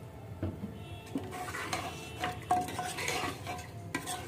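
Metal spoon stirring mutton pieces and freshly added water in a cooking pot, scraping and clinking against the pot several times, each clink ringing briefly.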